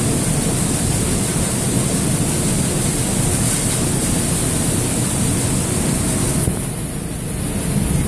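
Centrifugal dust-extractor fan running, a loud steady noise with no rhythm or pitch changes. The hiss softens a little about six and a half seconds in.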